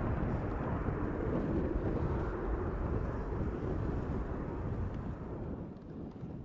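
Jet engines of a departing Airbus A330-300 airliner climbing away at takeoff power: a steady, deep rumble that eases off toward the end as the aircraft moves away.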